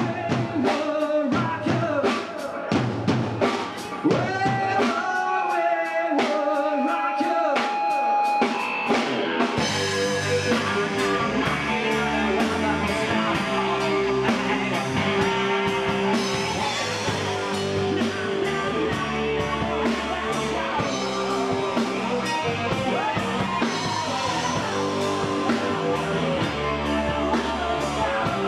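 Live rock band playing, drum kit and electric guitar with bass. It starts sparse, with spaced drum hits and guitar, and the full band comes in about nine seconds in.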